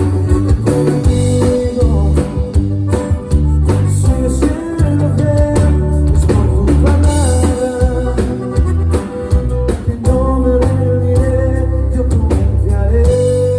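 Live band rehearsal: drum kit and bass keeping a steady beat under guitar, with long held melody notes over the top.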